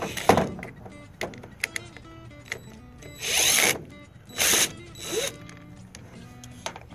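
Clicks and knocks of trimmer parts and hand tools being handled: a sharp knock near the start, scattered clicks, then two short rasping bursts a little past the middle. Background music plays underneath.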